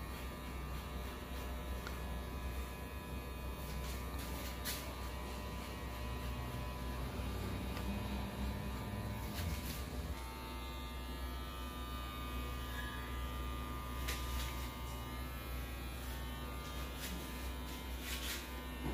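Electric hair clippers buzzing steadily as they cut hair, with a few brief clicks along the way.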